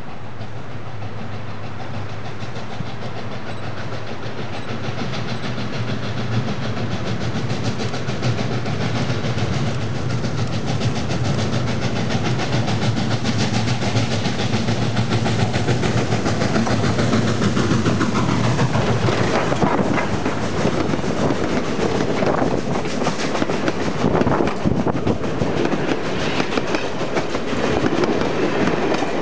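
Southern Pacific #2472, a 4-6-2 Pacific-type steam locomotive, approaches, growing steadily louder, and passes close by about two-thirds of the way through with a drop in pitch. The train's wheels then clatter over the rail joints as the cars roll past.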